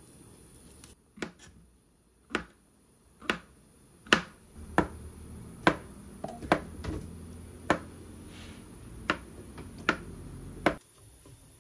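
Kitchen knife slicing a block of tofu, each cut ending in a sharp tap of the blade on the cutting board, about once a second.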